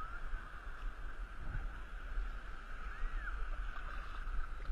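Water lapping and paddle strokes around an inflatable two-person kayak, with wind rumbling on the microphone. A faint short chirp is heard about three seconds in.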